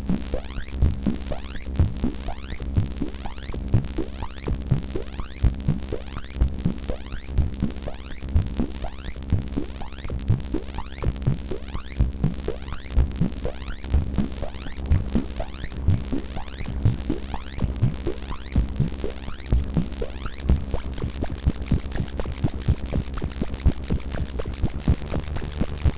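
Serge modular synthesizer patch: self-triggering transient generators fire a rapid, irregular stream of short electronic blips with quick pitch sweeps, several a second, through VCOs, filters and VCAs and the Wilson Analog Delay, over a steady low drone and a hiss of noise.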